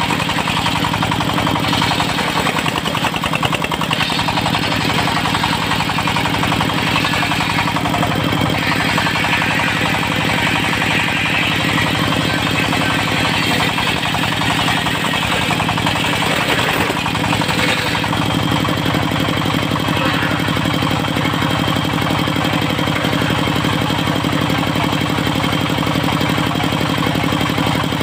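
Diesel engine of a portable circular sawmill running steadily. A higher rushing noise rides over it from a few seconds in until about two-thirds of the way through.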